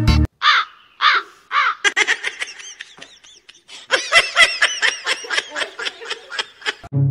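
Three short, high, falling cries, then several seconds of rapid high-pitched laughter, about four bursts a second.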